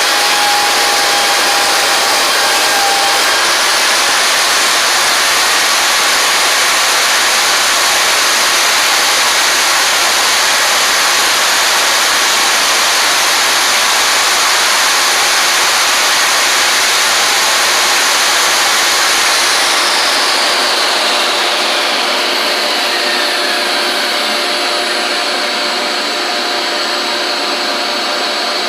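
Table saw with a Milwaukee 24-tooth ripping blade running and ripping along a board's edge to joint it, together with a shop vac drawing dust off the saw. About 20 seconds in, the saw's pitch starts falling as it winds down, while the shop vac keeps running.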